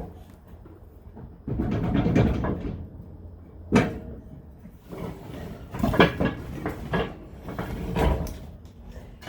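Irregular knocks, clanks and rattling from tools and metal mower-deck parts being handled while a spindle is worked loose, with one sharp knock about four seconds in.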